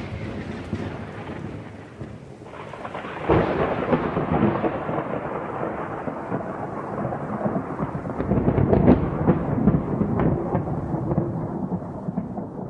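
Thunderstorm: rolling thunder over steady rain, with a fresh peal of thunder rumbling in about three seconds in.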